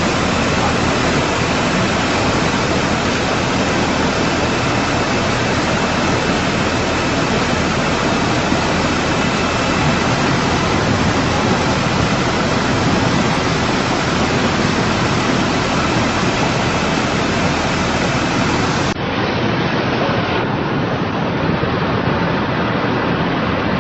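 Rushing floodwater: a loud, steady rush of noise. About 19 seconds in there is a brief dip, after which the same rushing continues.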